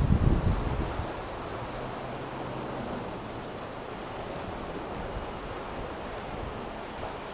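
Strong wind buffeting the microphone for about the first second, then a steady rush of wind and breaking waves.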